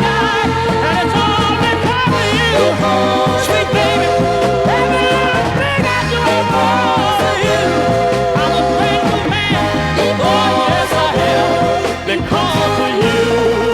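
Soul music record playing: a full band with a steady beat and a bending lead melody line over it.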